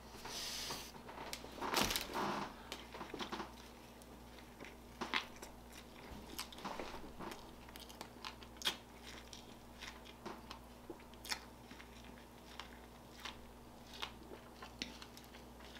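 A person biting and chewing a McDonald's McChicken sandwich fast: scattered wet smacks and clicks of the mouth, about one every second. It is louder and busier in the first two seconds.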